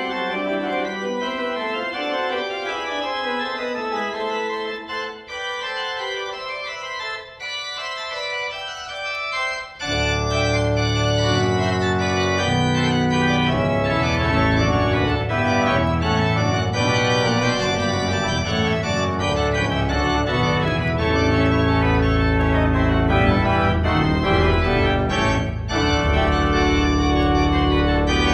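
A 1940 Möller pipe organ playing a fugue in several voices. About ten seconds in, deep pedal bass and a fuller registration enter, and the organ becomes louder and fuller for the rest of the passage.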